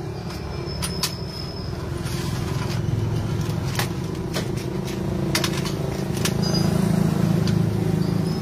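A nearby engine running steadily, getting louder for a couple of seconds near the end, with scattered light clicks of metal engine parts being handled.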